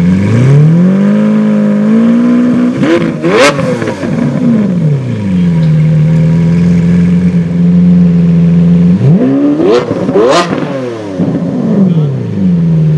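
The 6.5-litre V12 of a Lamborghini Veneno is revved twice while stationary. Each time the pitch climbs from idle to a quick burst of high revs with a sharp crack at the top, then falls back to a steady idle.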